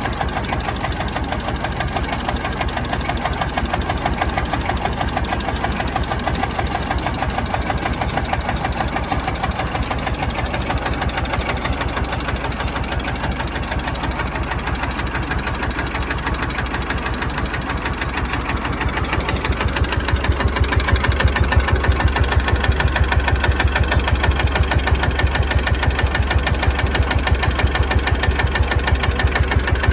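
Jiangdong JD300 30 hp single-cylinder diesel engine running steadily with an even, fast knocking beat. It gets louder about two-thirds of the way through.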